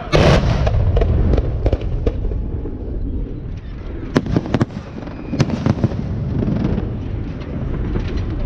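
Fireworks salute bursting overhead: a heavy boom just after the start rolls on as a low rumble, then a quick run of sharp cracks and bangs about halfway through.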